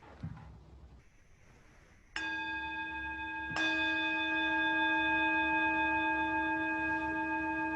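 A meditation bell struck twice, about a second and a half apart, its several clear tones ringing on steadily. It is the bell that calls the congregation into silence.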